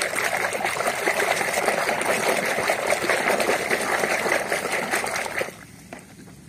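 A hand swishing and scrubbing in a plastic basin of muddy, soapy water: steady splashing and sloshing that stops suddenly about five and a half seconds in.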